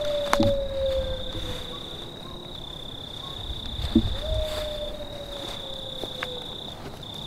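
Crickets trilling steadily at a high pitch, with brief breaks. Twice, a single long tone slowly falls in pitch over about two seconds. A few sharp knocks come through, the loudest near the start and about four seconds in.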